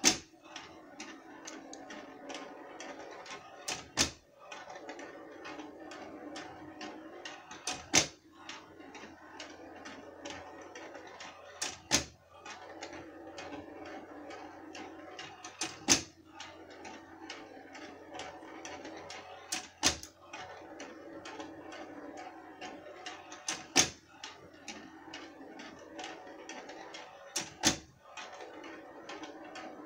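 Mechanical rolling-ball timer running: a ball rolls along the tilting track with a steady rumble, and about every four seconds the track tips over with a sharp clack, sometimes with a lighter click just before it.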